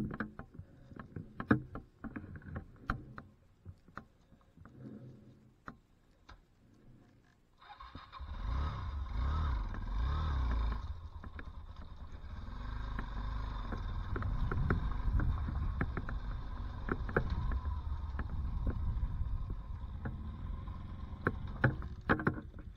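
Scattered knocks and clicks from the dirt bike being handled. About a third of the way in, its engine starts and keeps running as the bike rides off over loose gravel, rising and falling with the throttle.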